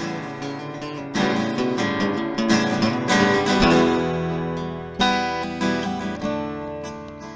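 Acoustic guitar music: strummed and plucked chords ringing out, with louder strums about a second in and again about five seconds in.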